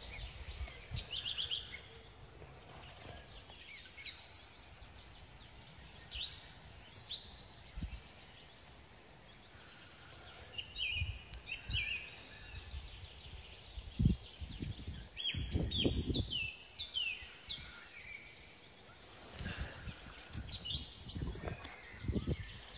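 Small birds chirping in short runs of quick, falling notes, several times over, with the low knocks and rustles of gloved hands digging and breaking apart clumps of forest soil. The sharpest knock comes a little past halfway.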